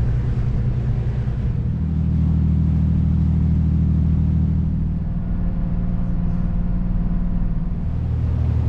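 A Nordhavn 55 trawler's diesel engine droning steadily while under way, heard as a low hum. Its tone shifts slightly about two seconds in and again around the middle.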